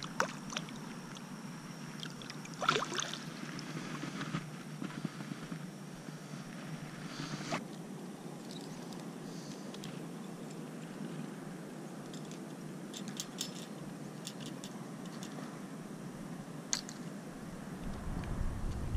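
A few splashes of shallow water about three seconds in, over a steady low background hiss. Later come scattered light clicks of metal treble hooks on a hard-bodied swimbait being handled.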